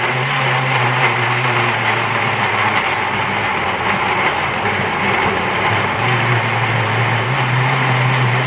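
Countertop blender running steadily at full power, pureeing whole fresh tomatoes and habanero peppers with no added water.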